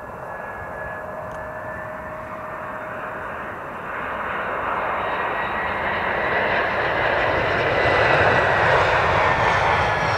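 Airbus A321 jet engines on final approach to landing: a steady roar with a high whine over it, growing louder from about four seconds in as the airliner comes close.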